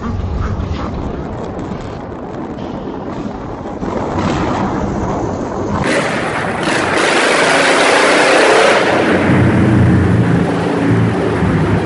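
Motorbike engines running at speed, with wind and road noise on the microphone. About six seconds in, the sound turns louder as the bikes run through a road tunnel, with a steady engine note standing out near the end.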